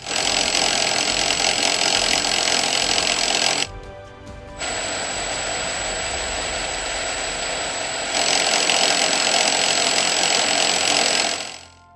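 Modular plastic conveyor belt running over the standard nose bar at a transfer: a loud, steady, noisy hiss with a thin high whine in it. After a short break about four seconds in, the belt runs over the new low-noise nose bar, noticeably quieter. It is louder again about eight seconds in.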